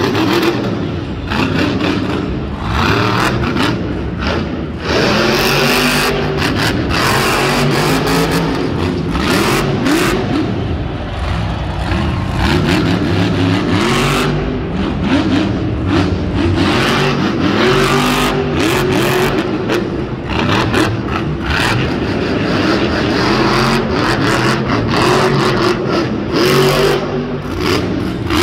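El Toro Loco monster truck's supercharged V8 revving hard over and over, its pitch swinging up and down, as the truck throws wheelies and goes over a ramp.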